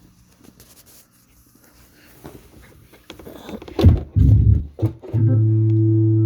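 Hammond B3 organ bass pedals: a few light clicks and knocks, then short low bass notes about four seconds in, and from about five seconds a single low pedal note held steadily.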